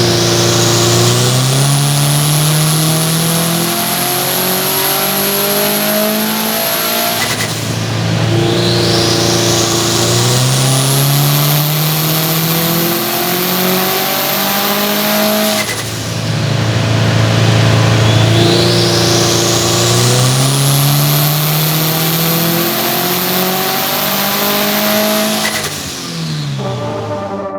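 Turbocharged Subaru WRX STI flat-four engine pulling hard under full throttle three times in a row, each run about eight seconds. The engine note climbs through each pull with a high whistle rising and levelling off above it, then drops away before the next.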